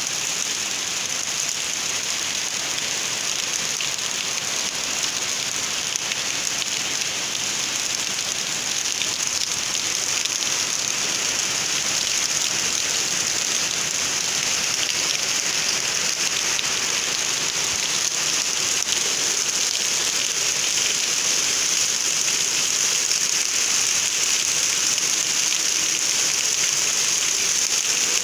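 Rain falling steadily on trees, a dirt yard and stone paving: a dense, even hiss that grows slightly louder in the second half.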